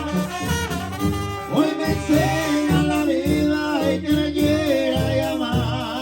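Mexican brass banda playing live: a tuba bass line pulses on the beat under a brass melody with wide vibrato.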